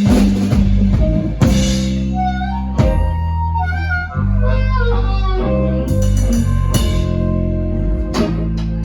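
A blues band playing a blues in C: a melodic lead line over sustained bass notes and drums.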